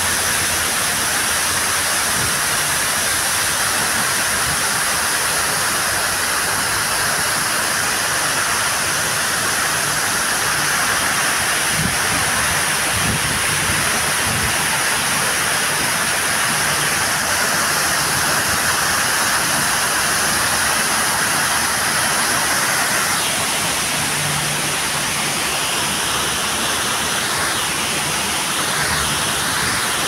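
Artificial waterfall with several cascades pouring over stone walls into a pool: a steady rush of falling water.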